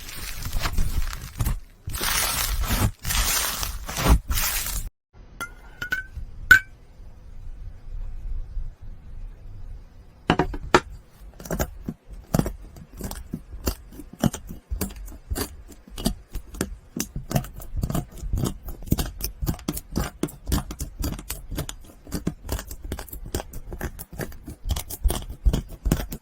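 Slime being handled: a few seconds of rustling noise at the start, then a dense run of small sharp clicks and pops from about ten seconds in.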